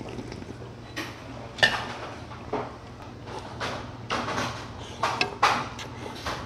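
Slurping of broth and noodles from a large bowl of meat noodle soup: a series of short, noisy slurps, the loudest about a second and a half in and again near five and a half seconds, with light clinks of chopsticks and ladle against the bowl.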